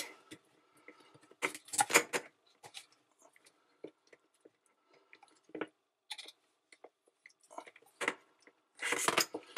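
Hands fitting a lubricated rubber sump seal into a dishwasher's steel base: scattered light clicks and rubbing of rubber and wire against the sump. There are a few louder bursts of handling about a second and a half in and again near the end.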